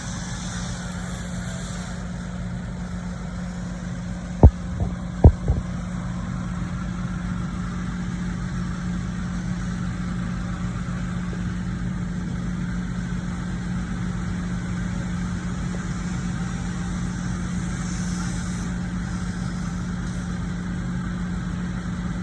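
Diesel engine of land-clearing heavy equipment running steadily with an even low drone. Two short sharp knocks come a little over four and five seconds in.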